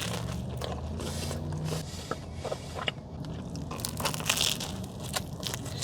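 Biting into and chewing a chicken pesto dipper sandwich, the baked bread crunching in irregular crackles.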